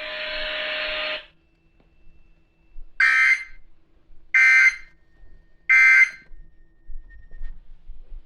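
Emergency Alert System end-of-message signal: three short, loud, buzzy data bursts about a second and a half apart, marking the end of the severe thunderstorm warning. They follow a second of steady hiss that cuts off.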